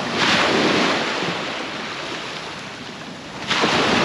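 Surf on a beach: a wave breaking just after the start and washing out over a second or so, then a second wave crashing in suddenly near the end.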